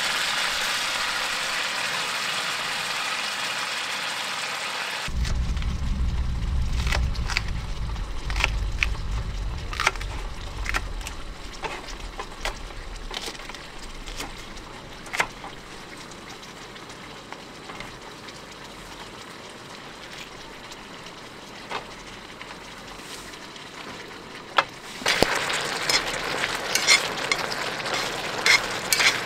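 Squid and pork belly sizzling in hot pork fat in a frying pan, with scattered sharp clicks of a spatula or popping oil. The sizzle is strong at first, drops away about five seconds in under a low rumble, and comes back strongly near the end.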